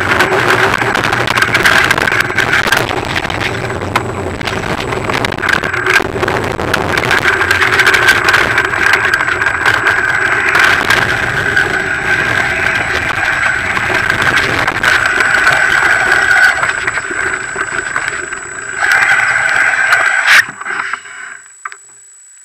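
Mountain bike ridden over a rough, rocky dirt trail: a loud steady rush of tyre and wind noise with constant rattles and knocks from the bike jolting over stones. It cuts off abruptly about twenty seconds in.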